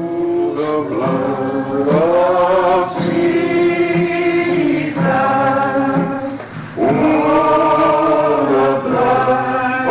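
Choral singing of long, held notes, with a brief break about six and a half seconds in.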